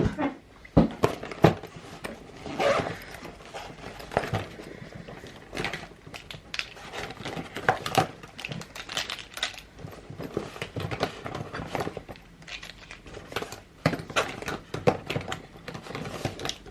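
Plastic Posca paint markers clicking and knocking against one another as they are rummaged through and taken out of a pencil case, in many irregular short clicks.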